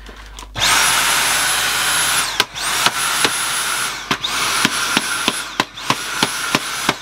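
Dyson V7 Motorhead stick vacuum's motor running in short bursts of about a second and a half, cutting out and restarting four times, its high whine rising at each start and falling at each stop. This is the pulsing mode, which the owner takes as a sign that the battery may be going flat. A few sharp clicks sound between the bursts.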